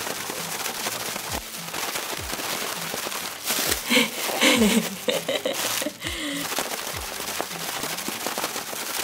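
Thin plastic bag holding instant coffee, sugar and hot water shaken hard and fast, a continuous crinkling rattle as the mixture is whipped into dalgona coffee foam. Brief voice-like sounds come in about midway.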